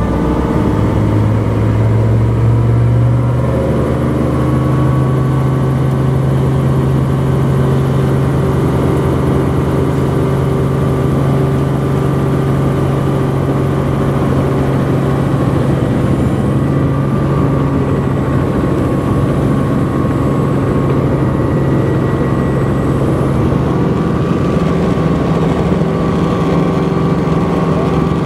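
Robinson R44 helicopter's six-cylinder Lycoming piston engine and rotor running, heard from inside the cabin. The engine note climbs over the first few seconds as the rotor comes up to speed, holds steady, then rises again near the end as the helicopter lifts off.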